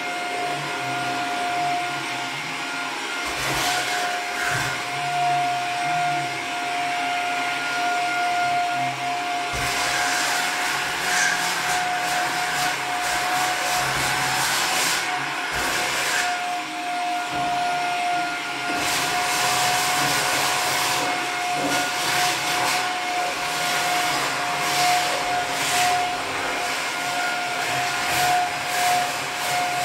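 Vacuum cleaner running steadily with a constant high whine. Its rush of air grows louder and softer every few seconds.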